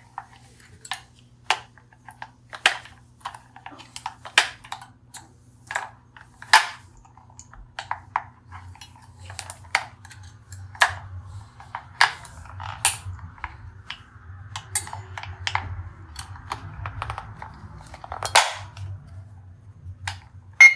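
Sharp plastic clicks and taps, uneven and roughly one a second, from a talking alarm clock being handled.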